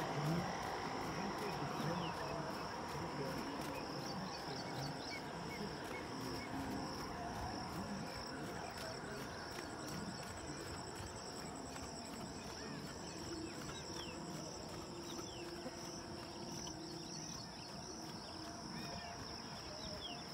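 Insects singing outdoors: a steady, unbroken high-pitched drone.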